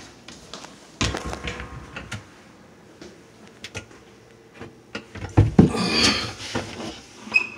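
Knocks, clatter and scraping of things being handled under a kitchen counter, like a cabinet door and objects being moved. There is a short burst about a second in and a louder, longer stretch of scraping and knocking around five to six seconds in.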